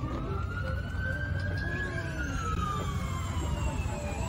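Emergency vehicle siren wailing in a slow rise and fall of pitch, peaking about halfway through and dipping before it climbs again near the end, over a steady low rumble of traffic.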